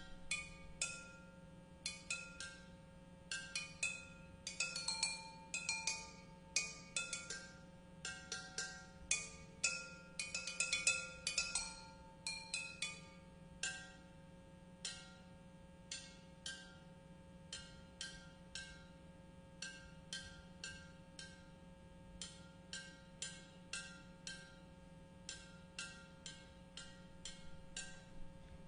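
Four terracotta flowerpots struck with thin sticks, each pot ringing briefly at its own pitch. The strikes come in quick irregular runs for the first dozen seconds, then thin out to single strikes about two a second.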